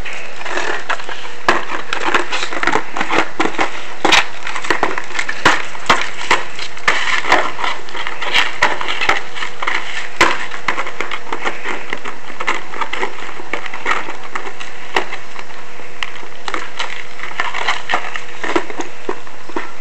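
A dog chewing and biting a wooden skateboard deck, teeth crunching and splintering the wood in irregular sharp cracks and clicks.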